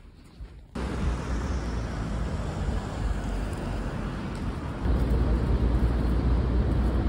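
Street traffic noise: a steady low rumble and hiss of passing vehicles that starts abruptly about a second in and gets louder about five seconds in.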